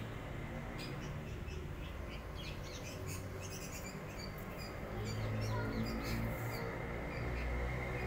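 Small birds chirping in short, high, scattered notes, over a low steady rumble.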